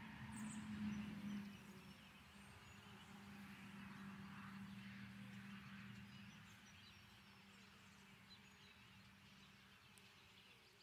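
Faint buzz of honeybees flying at the hive entrance, a steady wing hum that swells about a second in and then slowly fades. Faint chirping sounds in the background.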